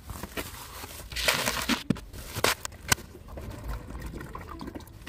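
Plastic crinkling and crackling as plastic is handled, loudest for about half a second a little over a second in, followed by a few sharp clicks.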